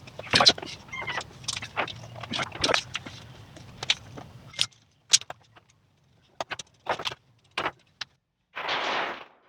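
Irregular clicks and light knocks of tools and metal parts being handled, over a low hum that cuts off abruptly about halfway through; near the end there is a short burst of hiss.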